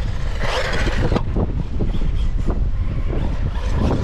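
Wind rumbling on the microphone while the electric Team Corally Asuga XLR 6S RC buggy drives over the grass. There is a louder rushing surge about half a second in and a few short clicks.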